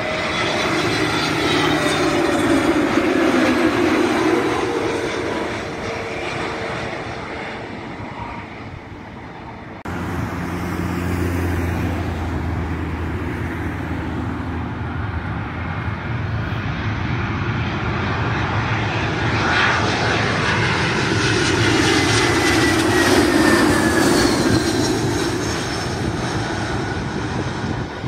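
Two jet airliners flying low on final approach, one after the other. First an Airbus A320neo, loudest a few seconds in, its engine tones falling in pitch as it passes and fades. Then, after a sudden cut, an Airbus A320 whose engine noise builds to a peak near the end with a falling whine.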